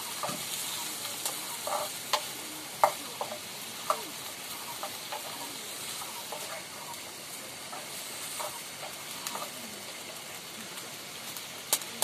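Food sizzling in a small black pan over a wood fire while a metal spoon stirs it, scraping and clinking against the pan at irregular moments, with a sharp click near the end.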